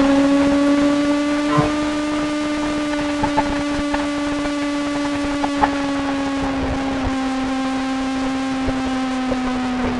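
Kawasaki ZX-25R's 250 cc inline-four engine running hard at high revs, with a high, wasp-like buzz. Its pitch holds steady, then slowly sinks as the bike eases off.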